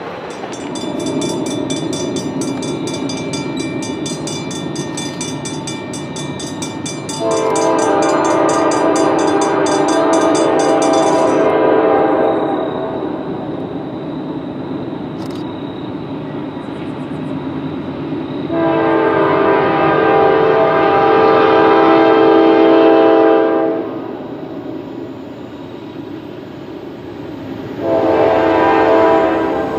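Approaching freight-train locomotive sounding its horn for a grade crossing: two long blasts of about five seconds each, then a shorter third blast near the end, over a steady rumble of the approaching train. A fast high-pitched ringing runs underneath for about the first eleven seconds, then stops.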